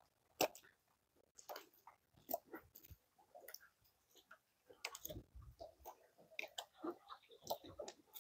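Faint, irregular clicks and ticks, with a few soft low thumps about two seconds in and again around the middle.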